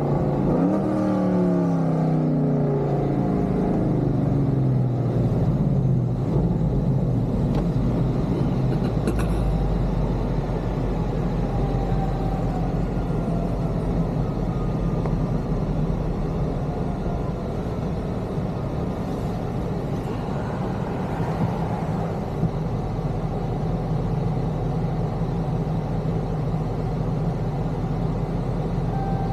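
6.4-litre HEMI V8 with long-tube headers and a Corsa exhaust, heard inside the cabin while driving. The engine note falls in pitch over the first few seconds as the car eases off, then settles into a steady low drone at cruise.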